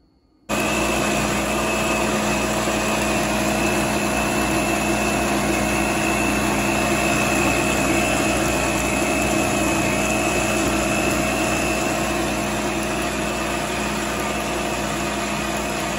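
Countertop blender switching on about half a second in and running steadily at full speed, blending fruit and juice into a smoothie. The motor gives a loud, even whine that holds one pitch over the churning of the liquid.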